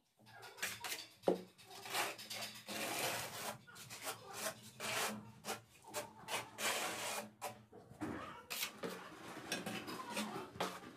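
Trowel scraping tile adhesive across the back of a large-format ceramic tile, in repeated rasping strokes.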